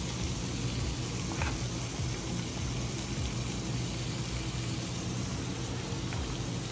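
A frying pan of spaghetti, tuna and green peppers cooking on the stove: an even hiss over a steady low hum, with one light tap about a second and a half in.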